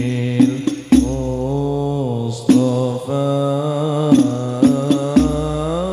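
A man's voice singing an Arabic sholawat through a microphone, in long held notes that bend slowly up and down. A low drone sits under parts of it, and a few short knocks come through.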